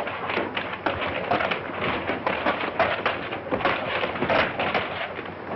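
A dense, irregular clatter of knocks and rattles that goes on without a break, mechanical in character.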